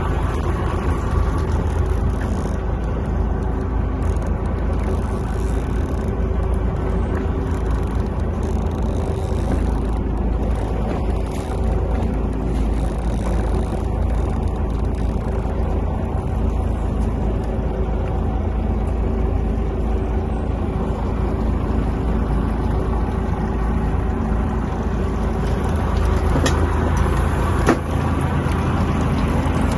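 A fishing boat's engine idling steadily, a constant low rumble with a few steady tones held throughout.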